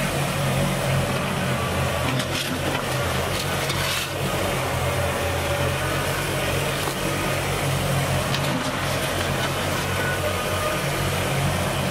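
Kubota BX25 tractor's three-cylinder diesel engine running steadily, with the hiss and light clatter of dirt and gravel sliding off the loader bucket into the hole.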